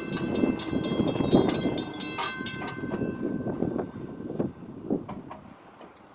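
Amtrak Empire Builder passenger train rolling past at speed, its wheels clicking rapidly over the rail joints with a high metallic ringing from the steel wheels and rail. About three seconds in the clicking thins out and the sound fades away as the end of the train goes by.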